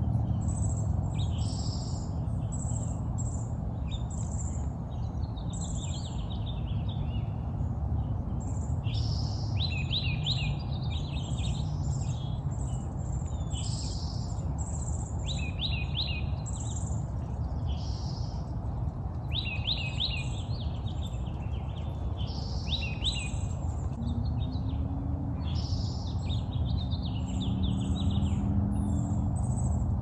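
Several songbirds singing and chirping, with short, fast trilled phrases coming again every few seconds, over a steady low background rumble.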